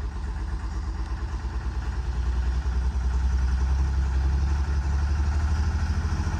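Old 125B excavator's engine idling as it warms up after starting, a steady low pulsing note that grows somewhat louder about two seconds in.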